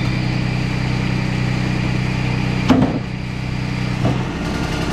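Wood-Mizer LT35 sawmill's engine running steadily, with a sharp knock about two and a half seconds in and a smaller one about a second later as wood on the mill bed is handled.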